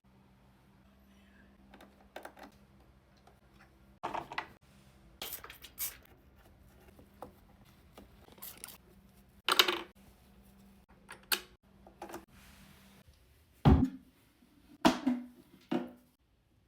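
Plastic parts of a Levoit humidifier being handled and taken apart: a series of separate clicks, knocks and clatters, the loudest about ten seconds in and a heavier thump near fourteen seconds. A faint steady hum underneath stops about thirteen seconds in.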